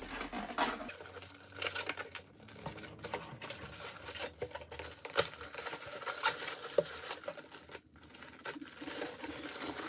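Thin protective plastic film being peeled and pulled out of a clear plastic enclosure, crinkling and crackling irregularly, with a few sharper clicks.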